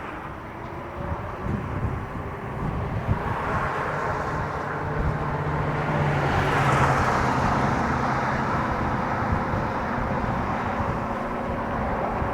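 Wind and road rush from riding an electric bike at speed. The noise grows to its loudest about halfway through, then settles back.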